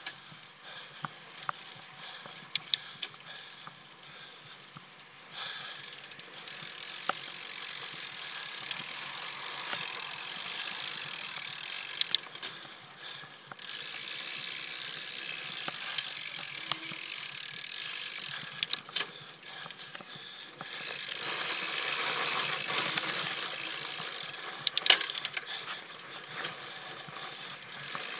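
Mountain bike ridden along a dirt trail: tyres rolling over the dirt, the freewheel ticking, and sharp clicks and rattles from the bike over bumps. The rolling noise picks up about five seconds in and is loudest a little past the middle.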